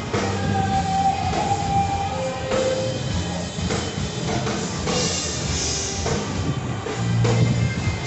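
Rock music with a drum kit keeping a steady beat and held melodic notes over it.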